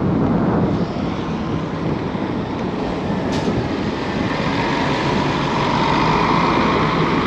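Wind rushing over the camera microphone and rolling noise from a bicycle being ridden along. A steady whine comes in over the second half.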